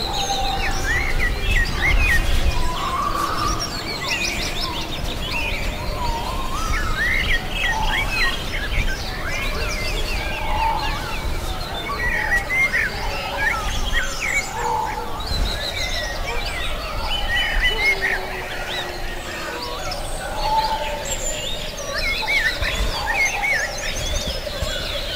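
A mixed chorus of many birds singing and calling at once: overlapping chirps, whistles and quick sweeping notes, with a low rumble underneath.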